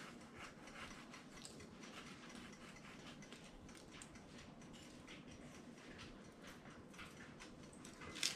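Faint, irregular scratching and light clicks of a spatula scraping the burnt, hard crust off the top of a cake, with a slightly louder click near the end.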